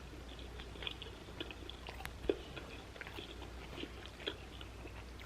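Close-miked chewing: soft, wet mouth sounds with scattered small clicks and one sharper click about two seconds in.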